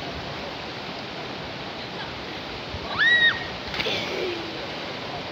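Steady rushing of river water. About three seconds in, a short high-pitched whistle-like cry, followed a moment later by a splash in the river.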